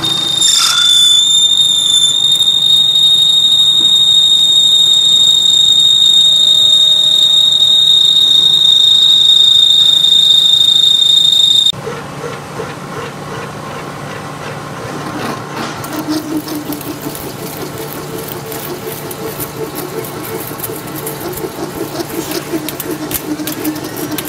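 Drill in a milling machine boring through a 6061 aluminium plate, giving a loud, steady high-pitched squeal that cuts off abruptly about halfway through. Then a large milling cutter cutting the aluminium: a quieter machine hum with rapid ticking of flying chips.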